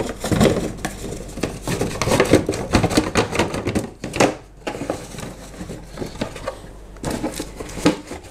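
Cardboard parts boxes being handled, a run of irregular rustles, crinkles and light knocks, busiest in the first four seconds and flaring again near the end.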